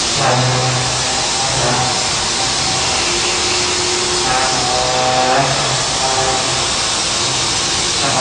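Mazak Nexus 700D-II vertical machining center milling metal with a large cutter: a steady cutting hiss and spindle whine. Background music with held notes that change pitch every second or so plays over it.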